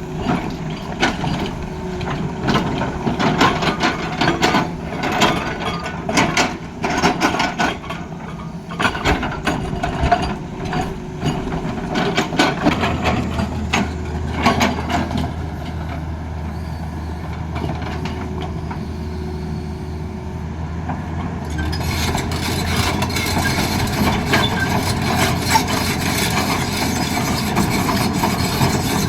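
Excavator at work: irregular knocks and clanks over the engine through the first half, then a steady low engine drone from about halfway, with louder, hissing machine noise over the last several seconds.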